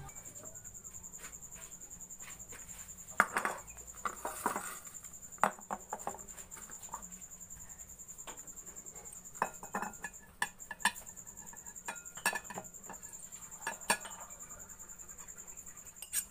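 Metal spoon clinking and scraping against a ceramic plate and a glass bowl as flaked fish is scraped into the bowl, in scattered irregular knocks. A faint steady high-pitched tone runs underneath.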